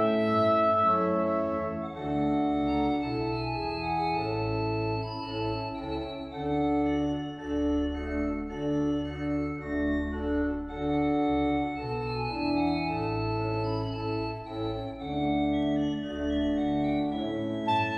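Organ music: held chords over a slowly moving bass line. A soprano saxophone finishes a phrase over it in the first couple of seconds and comes back in right at the end.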